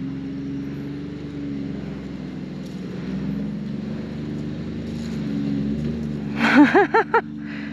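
Dirt bike engines idling steadily. Near the end there is a short burst of four quick laughs.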